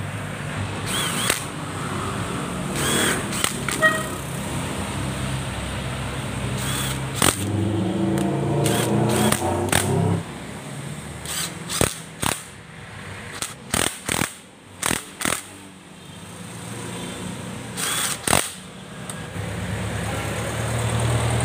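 Clinks and knocks of metal tools and engine parts being handled during motorcycle engine work, over a steady low hum. A brief whir sounds about eight to ten seconds in. The hum drops out about ten seconds in and comes back near the end.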